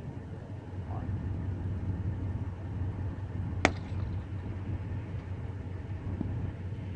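Steady low outdoor rumble, with a single sharp click about three and a half seconds in.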